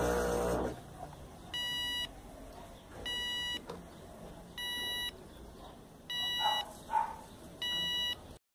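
Five evenly spaced electronic beeps, each about half a second long and about one and a half seconds apart. Two short, louder sounds come between the last two beeps.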